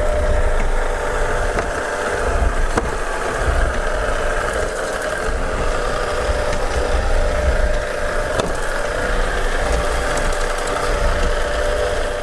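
Robot vacuum cleaner running: a steady motor whine and hum with a low rumble, and a few light knocks as it moves.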